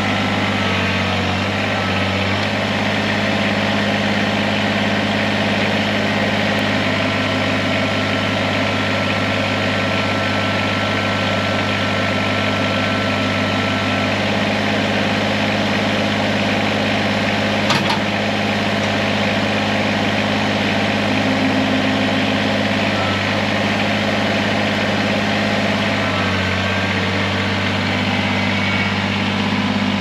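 Kubota BX2380 compact tractor's three-cylinder diesel engine running steadily while the front loader's hydraulics are worked to mount the bucket. A thin whine joins for several seconds about a quarter of the way in, and a single sharp knock comes a little past halfway.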